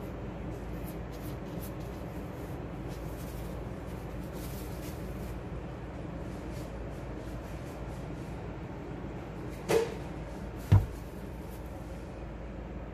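Steady background hiss, broken near the end by two sharp knocks about a second apart, the second louder and deeper.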